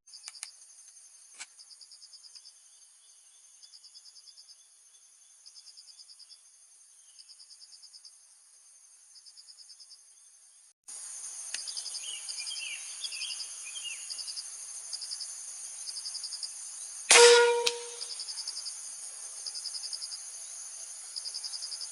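Insects chirping steadily, with a pulsing trill about every second and a half. About 17 seconds in comes one sharp, loud crack with a brief ringing tone: an air rifle shot from a PCP air rifle.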